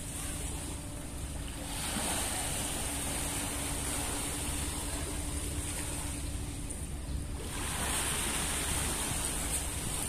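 Small waves lapping at the sea shore, the wash swelling up about two seconds in and again later on, over a steady low rumble and a faint hum.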